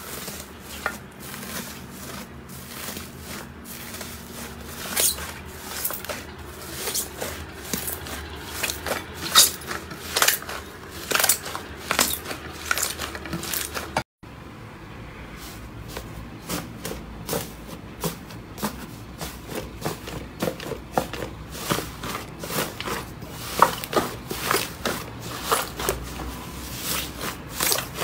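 Slime being squeezed and poked by hand: irregular sticky clicks and small pops, with a brief drop-out about halfway.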